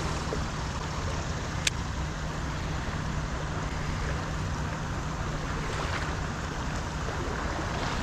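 Steady rushing of fast river current, with a single sharp click a little under two seconds in.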